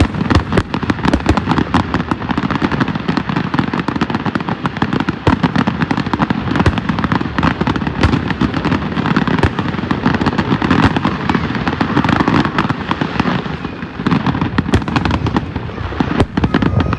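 Aerial fireworks display: a dense, unbroken barrage of shell bursts, many sharp bangs a second over a constant booming rumble, with a brief slight easing about fourteen seconds in.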